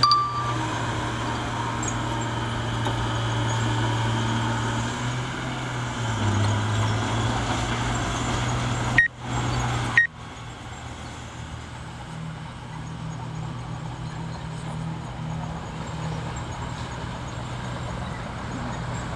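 Bulldozer diesel engine running steadily, its pitch dipping briefly about six seconds in. Two sharp clicks with short dropouts come about nine and ten seconds in, after which the engine runs on a little quieter.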